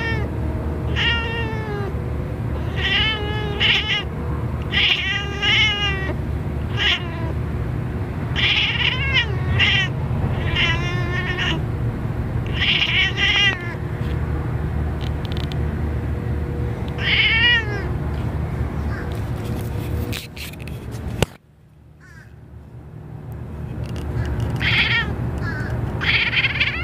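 Domestic cat meowing again and again, about a dozen short meows that rise and fall in pitch, at crows it is watching. A steady low rumble runs underneath, and the sound drops out briefly about two-thirds of the way through.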